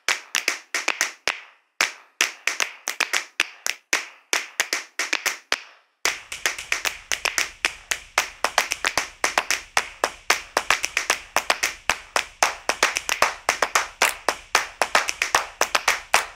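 Hand claps in quick succession, several a second, with a short gap near two seconds in, then coming thicker and steadier from about six seconds in.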